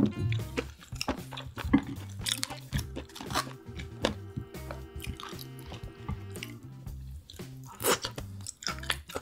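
Close-up chewing and crunching of seafood, with sharp wet bites every second or so, over background music with a repeating bass line.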